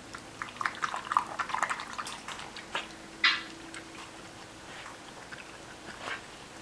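Four-week-old Wire Fox Terrier puppies squeaking and yipping as they play, in a quick scatter of small sounds over the first couple of seconds, then one short, higher squeal about three seconds in.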